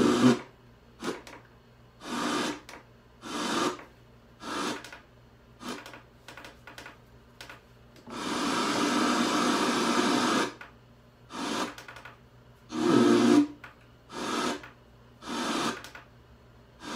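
Boombox radio cutting in and out: short bursts of static and broadcast sound about once a second, with a longer stretch of static in the middle, as the radio is tuned across the dial.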